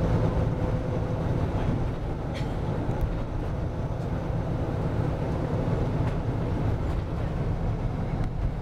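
Steady low rumble of engine and road noise inside a coach bus cruising along a motorway.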